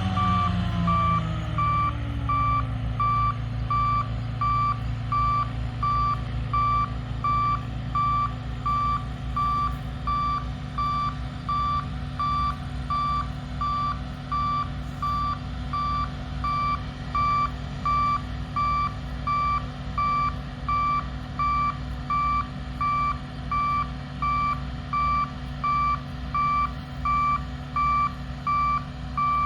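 Reversing alarm on a harvest machine beeping steadily, about once a second, over its diesel engine, which drops in speed over the first couple of seconds and then runs low and steady.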